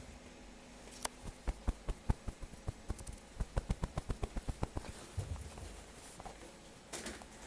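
Retriever puppy's paws pattering on a hard floor: a quick run of soft thumps and taps, about five a second, for about four seconds, then a softer thud and one more tap near the end.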